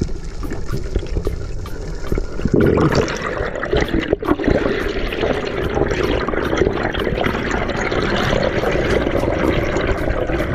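Water rushing and bubbling close to the microphone, as in an underwater dive. It grows louder and fuller about two and a half seconds in.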